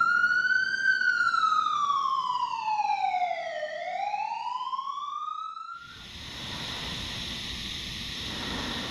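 Emergency siren wailing slowly, rising, falling and rising again, then cut off abruptly about six seconds in. A steady rushing noise follows.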